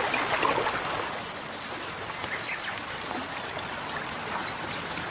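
Shallow river water running, with splashing in the first half second as a brown bear grabs a salmon. Small birds chirp briefly and high over the water.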